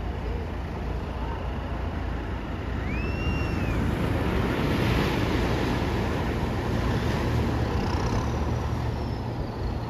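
Surf at the shoreline over a steady low rumble, swelling about five seconds in as a wave breaks. A faint high whistle rises and falls about three seconds in, and another falls away near the end.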